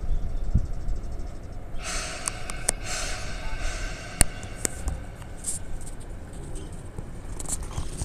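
Chichibu Railway 7800 series electric commuter train starting to pull out of the station: a low rumble, with a hiss that comes in about two seconds in and fades, and a few sharp clicks.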